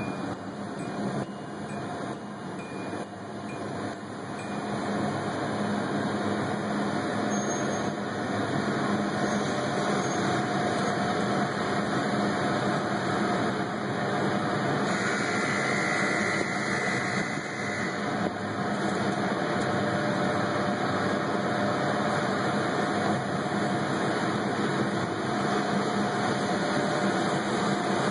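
Automatic car wash running: a steady rushing of machinery and water spray that grows louder about five seconds in.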